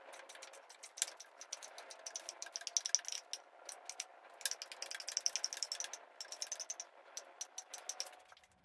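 A stick clicking and rattling against a paint can in fast runs of sharp ticks with short pauses between them, as paint is scooped out and flicked.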